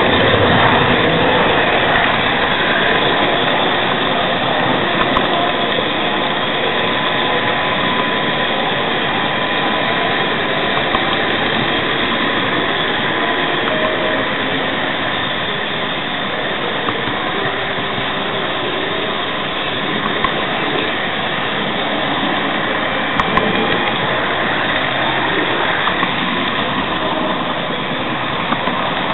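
Model train rolling along the layout track, heard from a camera wagon riding on it: a steady rolling noise of small wheels on the rails, with a faint steady tone and occasional small clicks.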